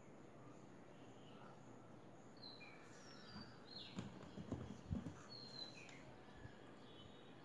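A few soft knocks and bumps of a small plywood box being handled and turned over, clustered in the middle, with a few faint high bird chirps in the background.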